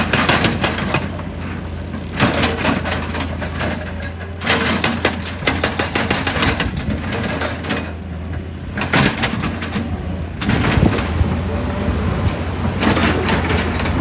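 Heavy excavator's diesel engine running steadily, with repeated bouts of rock crunching and scraping against the machine's steel, each lasting one to two seconds, about five in all.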